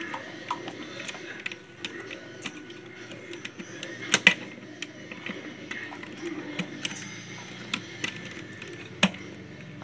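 Small metal parts of a Singer sewing machine head clicking and tapping as they are fitted by hand, with a sharp double clack about four seconds in and another sharp knock near nine seconds.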